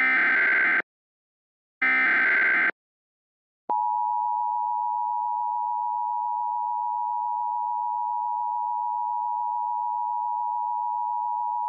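Emergency Alert System broadcast: two short buzzy bursts of SAME digital header data tones, then the EAS two-tone attention signal (853 and 960 Hz), a steady loud dual tone held for about eight seconds, signalling that an alert message is about to follow.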